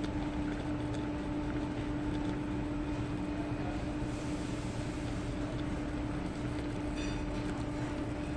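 Steady mechanical hum over a low rumble, with a short patter of light clicks about seven seconds in.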